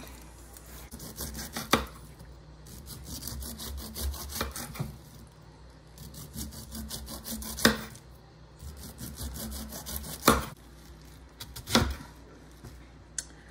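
A serrated knife sawing through the tough skin of a whole pineapple in quick rasping strokes, with a few sharp knocks on the table as the blade cuts through.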